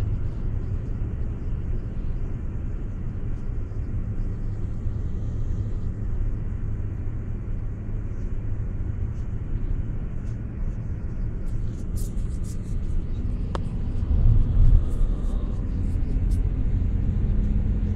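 Road noise inside a moving car: the steady low rumble of tyres and engine at cruising speed, briefly louder late on, with a few faint clicks near the end.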